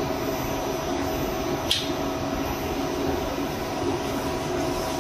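Steady mechanical drone and rushing air with a steady mid-pitched whine from the engine dyno room's machinery, with a single sharp click about two seconds in.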